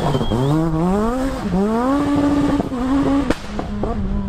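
Renault Clio S1600 rally car's 1.6-litre four-cylinder engine accelerating hard, its revs climbing and then dropping sharply at each quick upshift. A single sharp crack comes a little past three seconds in.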